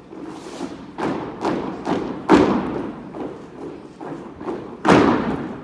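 Drill boots of a squad of cadets marching and stamping on a drill-hall floor: a run of thuds, with two loud unison stamps about two seconds in and near the end, echoing in the large hall.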